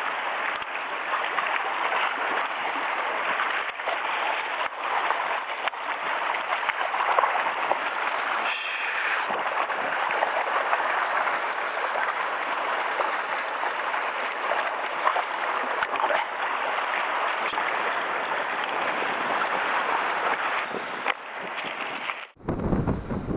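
Steady rush of sea waves washing over the rocky shore, with a few short sharp snips of spine-cutting scissors. The sound cuts off suddenly near the end.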